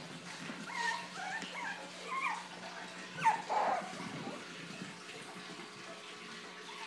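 Bichon Frise puppies whimpering and yipping in short, high, squeaky calls, with one louder yelp falling in pitch a little after three seconds in.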